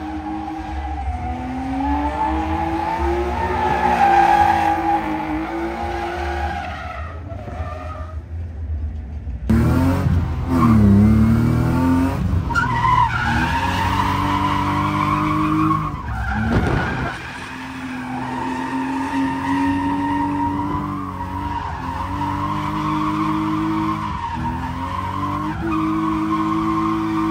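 Drift cars on track: engines held at high revs, the pitch swinging up and down as the cars slide, with tyre noise underneath. The sound changes abruptly about nine seconds in. Near seventeen seconds there is a sharp drop in revs followed by a climb.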